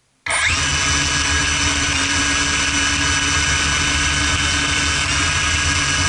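Quadcopter's electric motors and propellers starting up a moment in: a sudden whine that rises briefly and then runs steadily, with small shifts in pitch, while the craft still sits on the ground.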